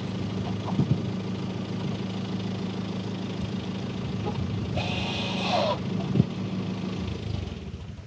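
Renault Grand Scénic engine idling steadily, heard from behind the car, then switched off near the end. About five seconds in there is a brief hissing whir lasting about a second.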